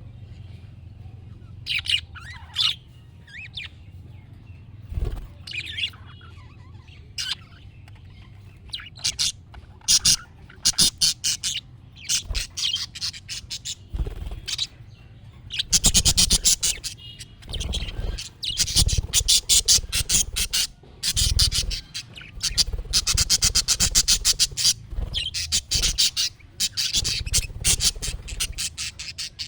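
Budgerigars chirping and warbling. Scattered short calls come first, then about halfway a dense, fast run of chattering warble.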